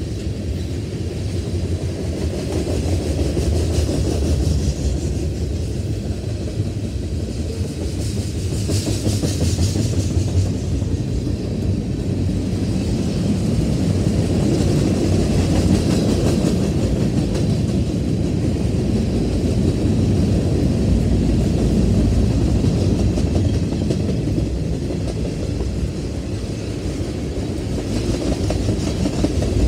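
Freight cars of a passing manifest train rolling by close at hand: a steady low rumble of steel wheels running on the rails.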